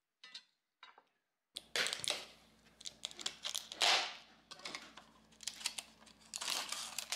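Thin plastic crinkling and clicking as a peel-off lid is pulled from a small plastic cup of pomegranate seeds, in irregular bursts over a faint steady hum, loudest about four seconds in.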